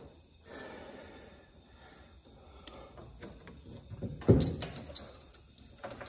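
Metal clicks and knocks as a chainsaw guide bar and chain are handled over a workbench, with one louder knock about four seconds in.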